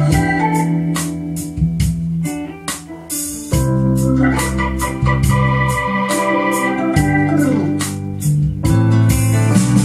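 Instrumental music played through a stereo receiver and loudspeakers: held organ chords over a bass line, with drum hits.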